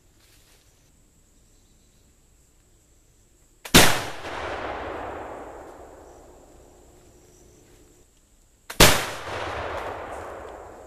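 Two shots from a .50 calibre Lyman Deerstalker flintlock rifle, about five seconds apart. Each loud report has a brief softer pop just before it and a long echo rolling away after it.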